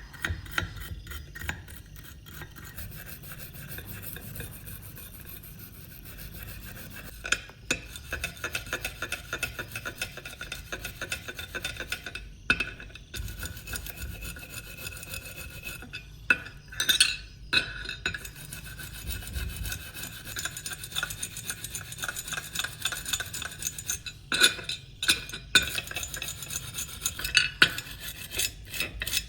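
Rapid back-and-forth hand abrasion on the knife, a dense run of scraping strokes broken by a few short pauses.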